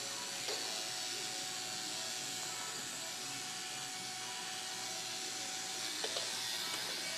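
Corded electric hair clippers running with a steady buzz as they shave hair off a head.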